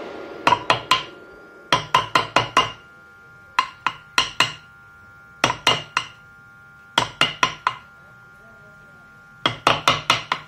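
Wood-carving chisel struck with light mallet taps, cutting into the wooden face in quick bursts of three to five taps with short pauses between.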